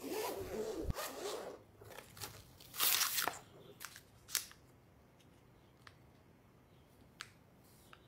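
The zipper of a hard-shell keyboard carrying case being pulled open for about a second and a half, with a dull knock near the end of the pull. Small plastic zip-lock parts bags then crinkle, loudest about three seconds in, followed by a few light, scattered ticks.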